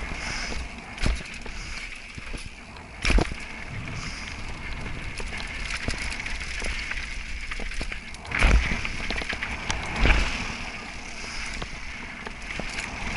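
Giant Reign full-suspension mountain bike descending dry dirt singletrack: tyres rolling over the dirt with a steady rush, broken by sharp knocks and rattles as the bike hits bumps, the hardest about three and eight and a half seconds in.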